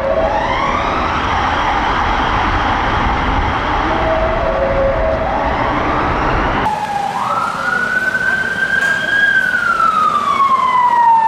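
UK police car sirens wailing. The first is a West Midlands Police Vauxhall Astra's siren in a road tunnel, with its rising sweeps over heavy traffic rumble. About six and a half seconds in, it cuts to a Metropolitan Police BMW X5's siren in a slow wail that rises, holds and then falls.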